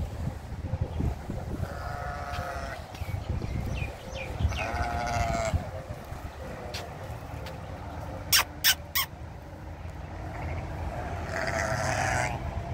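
Bleating from a pen of goats and sheep: three wavering calls, about two seconds in, about four and a half seconds in, and near the end. A little past the middle come three sharp clicks in quick succession, louder than the bleats.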